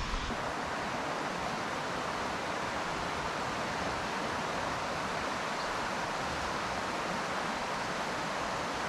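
A shallow rocky creek flowing steadily over stones and riffles, an even rush of water.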